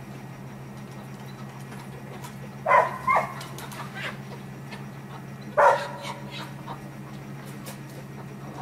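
A dog barks: two loud barks in quick succession about three seconds in and another near six seconds, with a few fainter ones between. Under them runs a steady low hum from the incubator's small circulating fan.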